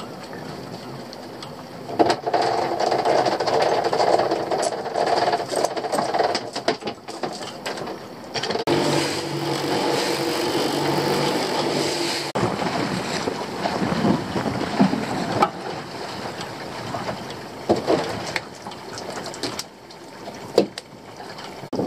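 Small fishing boat's engine running, picking up for a few seconds near the middle as the boat is manoeuvred and the propeller churns the water. Scattered knocks of gear against the boat and water sloshing alongside.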